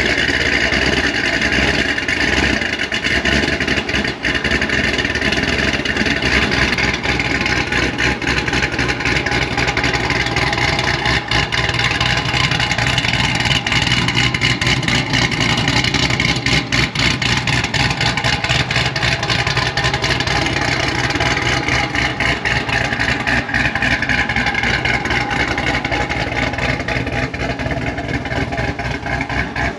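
Cadillac CTS-V's supercharged V8 idling steadily.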